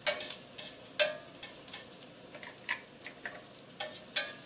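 Garlic sizzling in hot olive oil in a stainless steel skillet, with a utensil clicking and scraping against the pan as it is stirred. The clicks come irregularly; the loudest is about a second in, and there are two more near the end.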